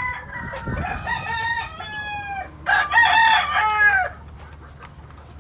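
White Kelso gamecock roosters crowing: two long crows, one after the other, ending about four seconds in.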